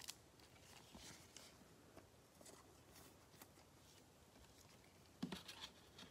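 Faint handling of trading cards in plastic sleeves by gloved hands: scattered soft clicks and rustles, with a short burst of louder rustling about five seconds in.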